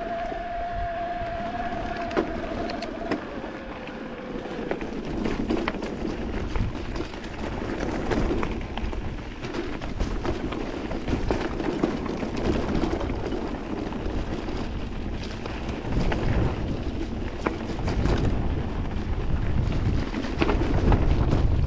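Electric mountain bike riding over rough, rocky trail: steady rolling noise with frequent rattles and knocks from the bike, and wind buffeting the action-camera microphone, heavier near the end. A high whine at the start slides lower and fades within a few seconds.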